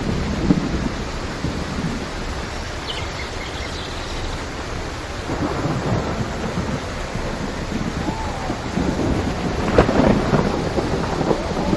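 Steady rain with rolling thunder rumbling in swells, the loudest about ten seconds in, and a few faint bird calls.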